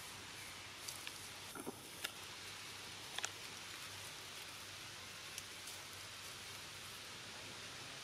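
Leaves and stems of a plant rustling and ticking as a baby macaque tugs at them, a few faint sharp ticks mostly in the first half, over a steady outdoor hiss.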